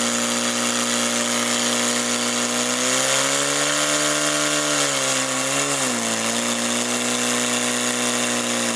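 Portable fire pump's engine running hard at high revs while it drives water through the attack hoses to two jets. The pitch climbs slightly about three seconds in and drops back sharply near six seconds as the load changes.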